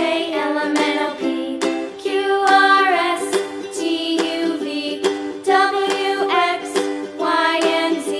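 Background music: a light, quick tune played on a plucked string instrument.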